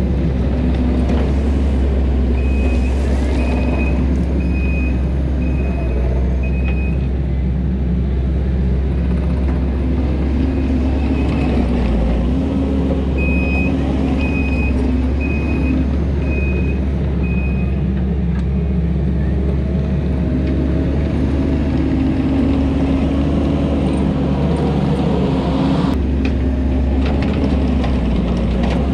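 Kubota SVL 90-2 compact track loader's diesel engine running steadily under load while the machine works dirt, with its backup alarm sounding in two runs of about five beeps each as it reverses.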